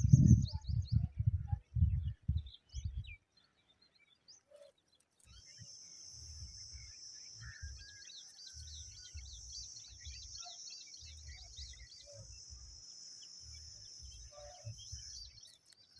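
Many quick, high bird chirps over a steady high hiss, with low thumps in the first few seconds.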